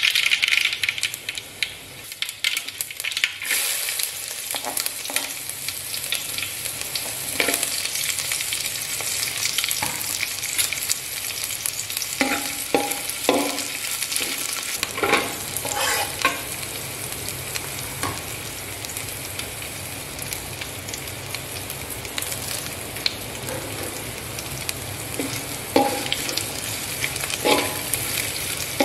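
Hot oil sizzling in a metal pot as chopped ginger, chillies, shallots and curry leaves fry, with sharp pops and crackles throughout. A metal spatula scrapes and knocks against the pan in short bursts, around the middle and again near the end.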